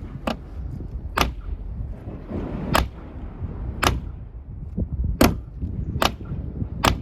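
Glass-breaker tip of a Helly Tec Large Hellion OTF knife struck hard against a car window seven times, about once a second, each a sharp tap. The glass does not break.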